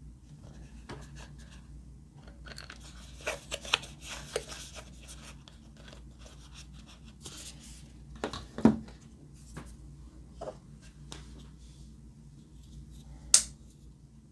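A plastic squeeze tube of hand cream and other small plastic items handled over a tub of slime: scattered soft crackles and clicks, a cluster of sharper clicks a few seconds in, a lower pop past the middle and one sharp click near the end.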